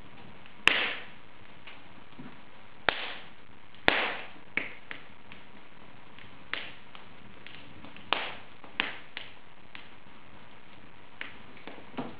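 Wood fire in an open fireplace crackling: irregular sharp pops over a steady low hiss. The loudest pop comes just under a second in, with a few more strong ones around three to four seconds and around eight to nine seconds.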